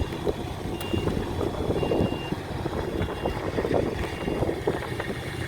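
Vehicle engine running at idle with a steady low rumble, while a short high-pitched beep repeats about once a second, as from a reversing alarm.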